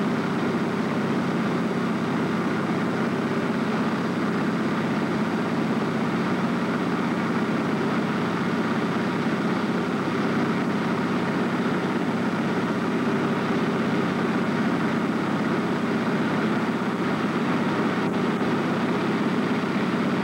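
Small plane's engine running steadily, heard from inside the cabin.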